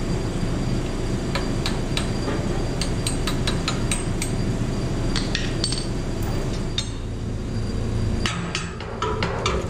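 Irregular light hammer taps and metal clinks on steel, coming more thickly near the end, over a steady low hum.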